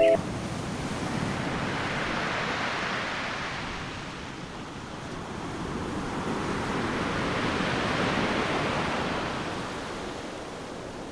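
Ocean surf: a steady wash of waves that swells and recedes twice, cresting about two seconds in and again about eight seconds in.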